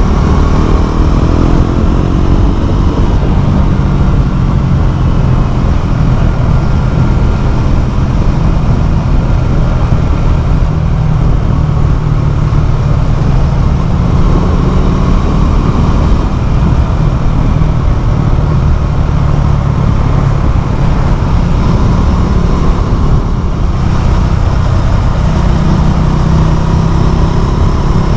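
Motorcycle running through a LeoVince LV One Evo carbon exhaust with the dB killer removed, giving a loud, deep exhaust note. The revs stay fairly steady throughout, with only small rises and falls.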